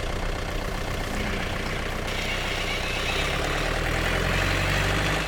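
Truck engine running with a steady low throb, getting a little louder toward the end and then cutting off abruptly.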